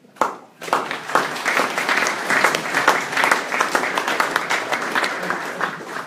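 Audience applauding: a few scattered claps at first, building about a second in to a dense round of clapping that tapers off near the end.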